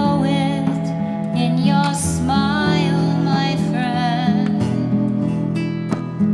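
Instrumental passage: a flute plays a slow melody with vibrato over plucked nylon-string classical guitar and long held bowed cello notes.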